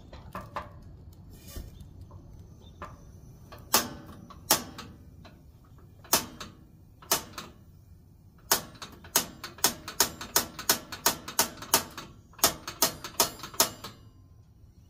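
Camp stove igniter clicking repeatedly while the burner is being lit: a few spaced clicks, then a quick run of about three clicks a second in the second half.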